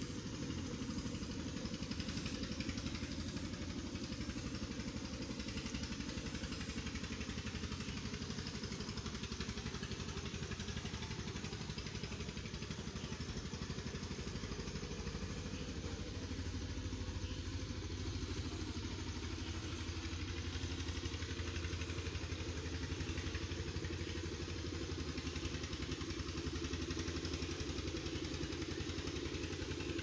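An engine or motor running steadily, its speed unchanging throughout.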